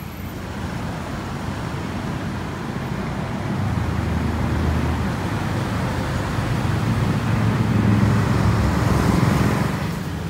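Road traffic noise: a steady rumble of passing cars and other vehicles, swelling to its loudest about eight seconds in and dropping away just before the end.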